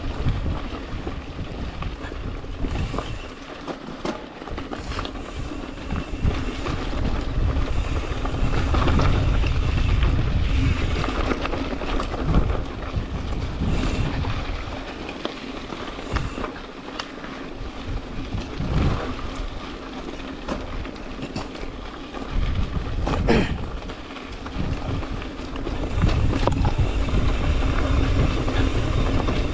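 Wind buffeting an action camera's microphone over the rumble of an Ibis Ripley mountain bike rolling down a dirt and rock trail, swelling and fading as the bike speeds up and slows. A faint steady hum runs underneath, with scattered clicks and rattles.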